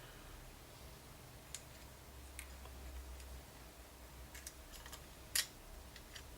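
A few sparse, light clicks and ticks of small metal parts being handled and fitted, the ball bearings and parts of a Dansette record player's on-off switch, the sharpest click about five seconds in, over a faint low hum.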